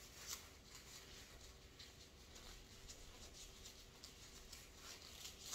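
Faint rustling and small snaps of disposable gloves being pulled onto gloved hands, with a sharper snap near the end.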